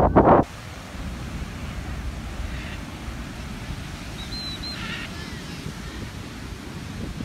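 Surf breaking on a sandy beach: a steady wash of waves under the wind, opening with a brief burst of wind buffeting the microphone. A faint short high chirp about four seconds in.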